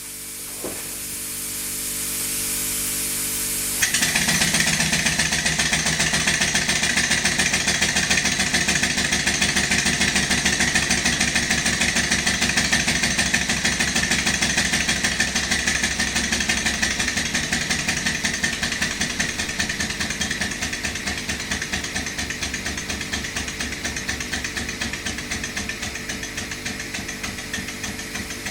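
A hiss builds for about four seconds. Then a Bernays non-dead-centre engine starts suddenly and runs with fast, even exhaust beats over a hiss, slowly getting quieter.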